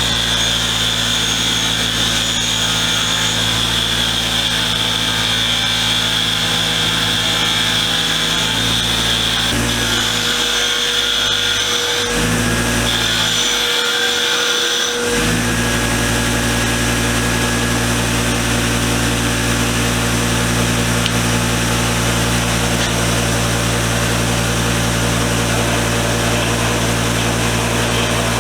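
Power-driven wire wheel scrubbing the cast iron body of a hand vise, over the steady hum of the tool's motor. A high steady whine rides on top for about the first half, breaks off briefly twice, then stops while the motor runs on.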